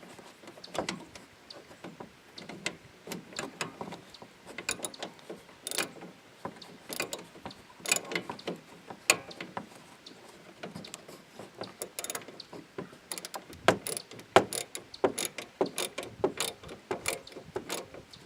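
Ratchet wrench clicking in short, irregular runs of sharp clicks while the mounting bolts of a replacement hood latch are tightened.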